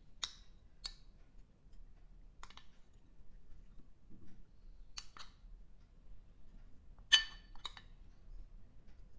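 Light clicks and clinks of a metal spoon and berries against a ceramic plate as berries are spooned onto a crepe, a few scattered taps with one brighter, ringing clink about seven seconds in.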